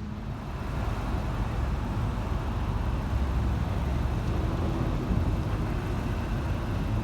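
Low, steady rumble of vehicle engines and road traffic, swelling about a second in and then holding.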